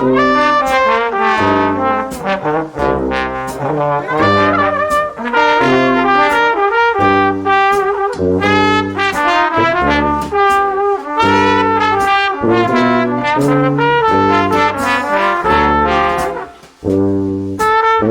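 Brass-led instrumental music with trumpets and trombones over a steady bass line, loud, with a brief dip near the end.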